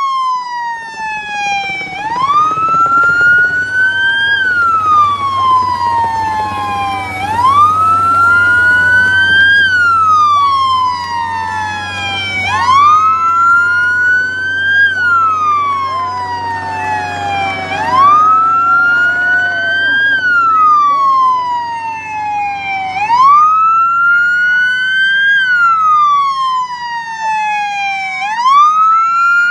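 Police siren wailing, sweeping slowly up and down about every five seconds, with a second siren overlapping at times over a steady low engine hum.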